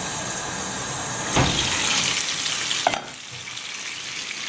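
Mushrooms sizzling in a frying pan, with a knock about a second and a half in and a short click near three seconds, after which the sizzle is quieter.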